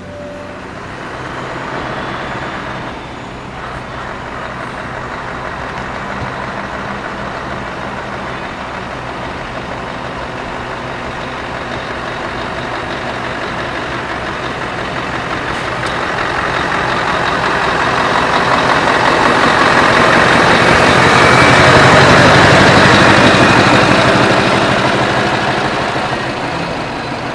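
Scania truck diesel engines running at low speed as the trucks drive slowly by. The sound swells to a peak about three quarters of the way through as a tractor unit passes close, then fades as it moves away.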